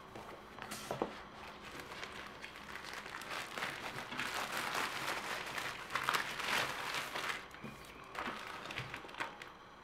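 Rustling and crinkling with a few light knocks, loudest in the middle.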